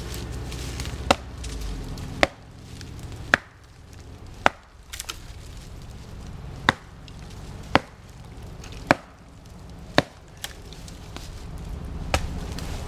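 Heavy blows struck into a tree trunk, about one a second with a short pause in the middle, nine strikes in all, each sharp and short.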